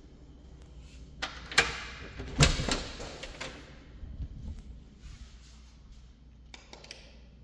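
Interior door being opened: lever handle and latch clicking, then the door swinging open, with the loudest knock about two and a half seconds in. A few more quick clicks near the end.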